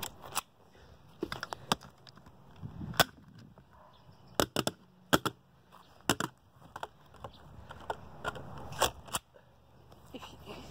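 Two airsoft pistols firing at close range: about a dozen sharp snaps at irregular intervals, several coming in quick pairs.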